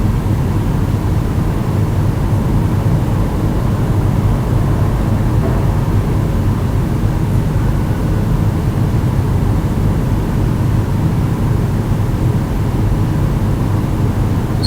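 Water heater running: a steady low hum with no change in level or pitch.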